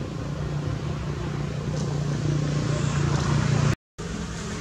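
A motor vehicle engine running steadily and growing gradually louder, then cut off abruptly near the end.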